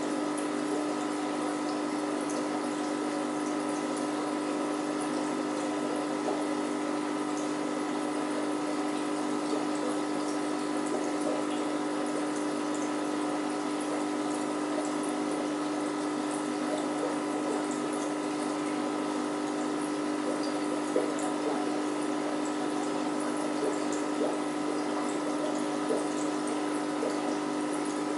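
Aquarium filter running: a steady hum with water bubbling and trickling, and a few faint ticks.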